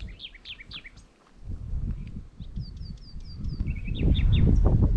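Small birds calling with short, falling chirps, including a quick run of about six high notes around three seconds in. A low rumbling noise on the microphone builds from about three and a half seconds in and is the loudest sound near the end.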